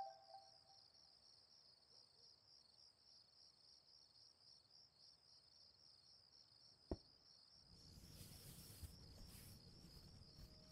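Faint, steady chirping of crickets at night, a rapid pulsing high trill. About seven seconds in there is a single sharp click, then cardboard rustling as a white takeout box is opened for the last three seconds.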